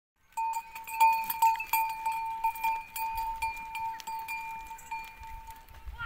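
A metal goat bell clanking again and again as the animal moves, each strike adding to one steady ringing tone that slowly fades toward the end.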